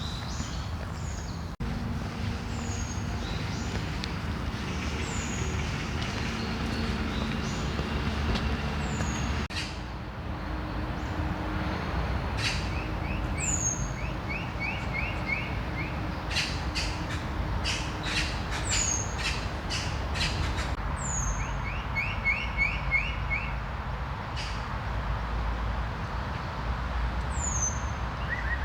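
Several birds calling: a short, high, downward-sweeping call repeats every few seconds, and there are runs of quick repeated notes, over a steady low rumble.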